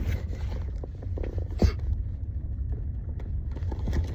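Steady low rumble with light clicks and one sharp tap about a second and a half in, like small product packaging being handled.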